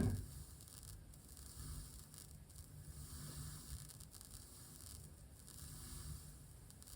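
Faint crackling and popping from a studio monitor as the master volume knob of a Tascam LM-8ST line mixer is turned: a fault in the mixer's left channel, which the owner puts down to the mixer and not the cable or speaker.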